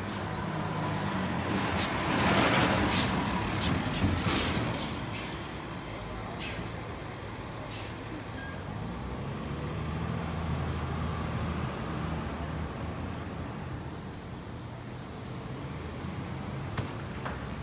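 Heavy vehicle engine running in street traffic, with a loud hiss of air brakes about two seconds in and a few sharp clicks; the engine hum swells again near the middle.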